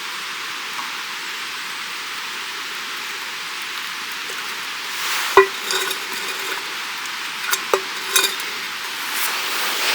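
Metal camp cookware clinking: one sharp ringing knock about halfway through, then a few lighter clinks, like a utensil against a metal pot or cup. A steady hiss runs behind it.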